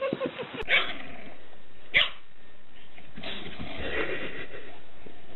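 A dog giving two short, sharp barks about a second apart.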